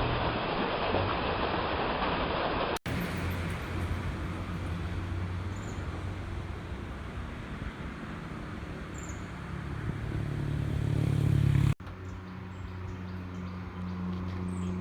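Three short clips cut together. First an even rushing noise, then a motor vehicle's engine running and growing louder, then a steady low engine hum.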